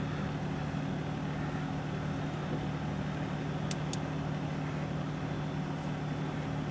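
Steady hum of an idling vehicle engine heard from inside a stopped car. Two short, high ticks come about a quarter second apart near the middle.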